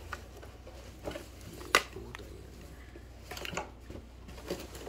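Plastic earbuds charging case and its packaging being handled: scattered light clicks and taps, with one sharp click a little under two seconds in, over a low steady hum.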